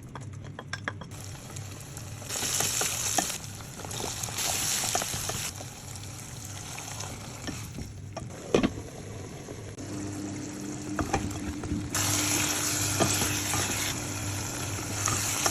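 Aloo keema frying and sizzling in a pan while it is stirred, with the spoon clicking and scraping against the pan. The sizzle swells and fades in stretches and is loudest near the end.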